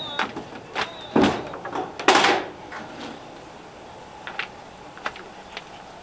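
Wooden door of a corrugated-tin shack being pulled shut and latched: a run of knocks and clicks, a heavy thud a little over a second in and a louder scrape about two seconds in, then a few faint ticks.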